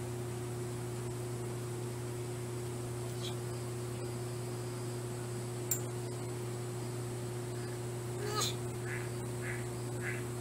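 Steady low hum throughout. About eight seconds in comes a short call, then a run of short high chirps, about two a second.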